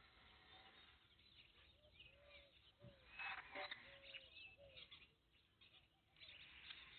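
Faint bird calls: a run of about five short arched notes with thin higher chirps, and a brief louder noise about halfway through.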